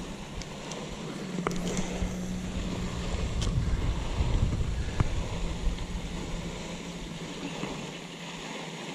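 Wind rushing over the microphone, a steady noisy hiss, with a low steady hum coming in about a second in and a few faint clicks.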